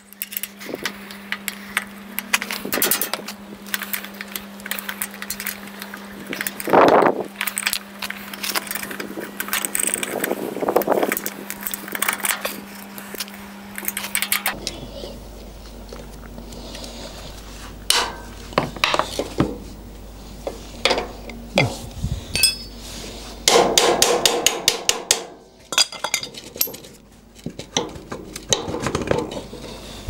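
Hand tools working the bolts of a jockey wheel clamp on a steel trailer drawbar: scattered metal clinks, taps and knocks, with runs of rapid clicking in the later part.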